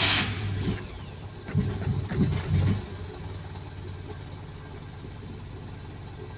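Fiat 126p's two-cylinder air-cooled engine running after a struggle to start. It is revved in a few quick blips about two seconds in, then settles to a steady idle.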